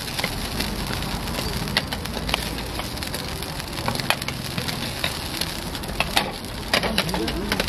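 Hotteok frying in oil on a flat steel griddle, a steady sizzle, with scattered sharp metal clinks as stainless steel dome lids are set down and lifted over the pancakes.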